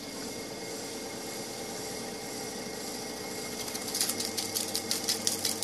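Elizabethan LZ32 reel-to-reel tape recorder rewinding its tape at speed: a steady motor hum with a constant whine. About four seconds in, a rapid rattling clicking joins it.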